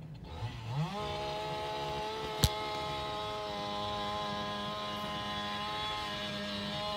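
A chainsaw engine revs up, its pitch climbing within the first second, then runs steadily at high speed without cutting. A single sharp click comes about two and a half seconds in.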